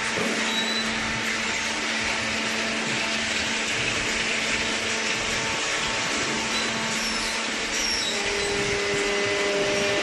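Steady mechanical hum and hiss of baling-plant machinery running, with a further steady tone joining about eight seconds in.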